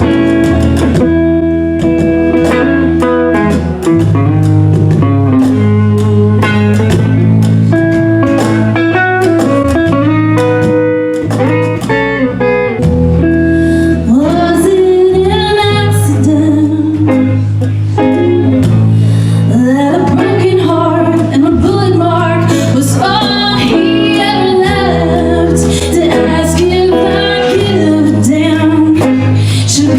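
Live acoustic country performance: guitar chords with held low notes, joined by singing from about halfway in, with the voice sliding and bending through the notes.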